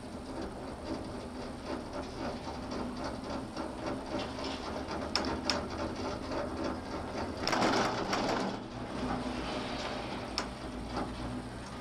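Steady rattle and hum inside a detachable eight-seat gondola cabin riding the haul rope, with a few sharp clicks. About seven and a half seconds in, a louder rumbling clatter lasts about a second as the cabin's grip runs over the sheaves of the tower it has just reached.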